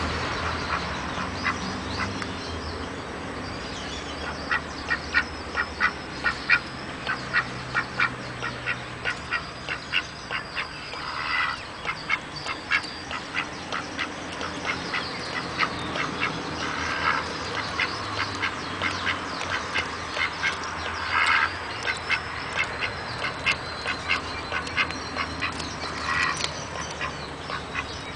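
Mallard drake quacking: long runs of short calls, several a second, broken every few seconds by a longer raspy call.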